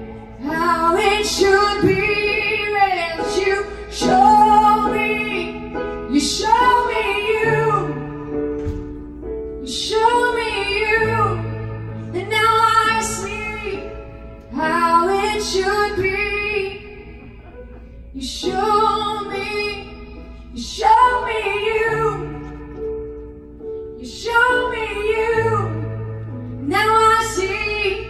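A woman singing a slow worship song with keyboard accompaniment, in phrases of a few seconds over held chords.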